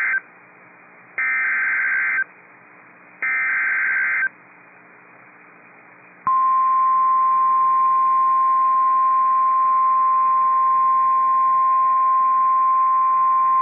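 NOAA Weather Radio Emergency Alert System signal heard through a radio receiver. The SAME header data bursts, harsh buzzing chirps about a second long with a second between them, end the first sounding and repeat twice. About six seconds in, the steady 1050 Hz warning alarm tone starts and holds, signalling that a warning message is about to be read.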